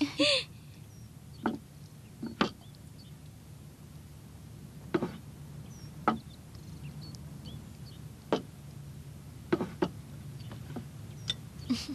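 Light, separate knocks and clinks, about eight spread out over the stretch, as bowls and dishes are set down on a table, over a low steady hum.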